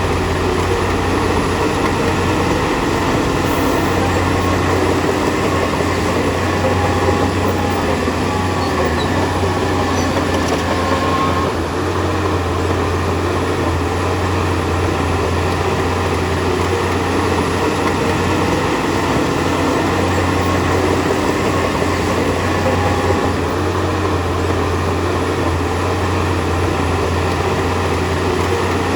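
Bulldozer's diesel engine running steadily at work, a constant low hum with a continuous clanking rattle from its steel crawler tracks.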